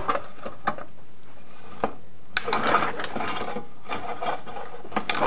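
Briggs & Stratton engine's recoil pull starter yanked after a few clicks of handling, the engine cranking over with a short ratcheting whir for about a second without firing. The engine is being spun to test the newly fitted electronic ignition coil for spark.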